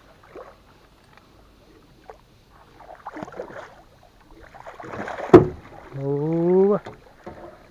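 Water splashing as a hooked pacu thrashes at the surface beside a small aluminium boat and a landing net is dipped in after it. A single sharp knock about five seconds in, then a man's short rising wordless exclamation.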